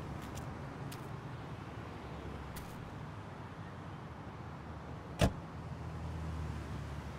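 A Ford sedan's door slamming shut once, sharp and loud, about five seconds in, over a steady low rumble and a few faint clicks.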